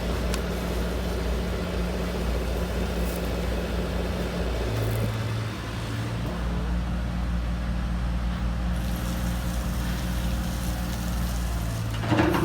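Hydraulic pump and electric drive motors of heavy metal RC construction models running with a steady hum. The tone changes about five seconds in, and there is a short knock near the end.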